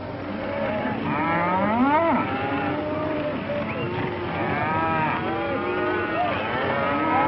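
A herd of cattle lowing, many moos overlapping and rising and falling in pitch, with the loudest calls about two seconds in and again around five seconds.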